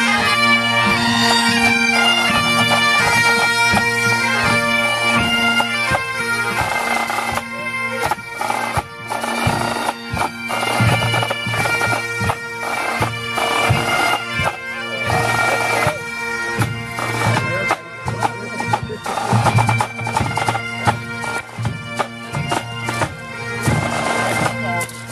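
Pipe band of Great Highland bagpipes playing a march, several sets together, with steady drones under the chanter melody. About seven seconds in the pipes grow fainter and a regular beat comes through.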